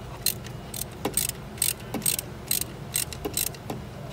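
Ratchet wrench clicking in short runs, about two a second, with a few duller knocks from the tool, as a bolt is turned to adjust the serpentine belt's tension.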